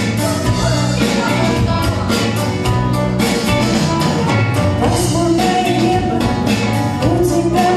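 A live pop band with women's voices singing into microphones over keyboard and a steady drum beat. The sung notes come in more strongly about five seconds in.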